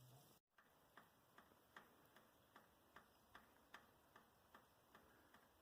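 Faint, even dripping of meltwater, about two and a half drips a second.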